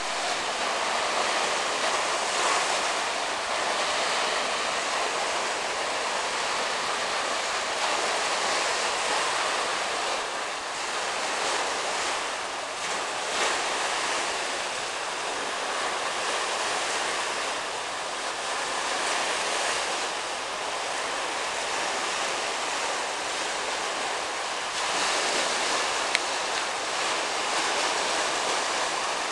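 Steady hiss of sea surf washing onto a sandy beach, an even wash with no separate wave crashes, swelling and easing a little now and then.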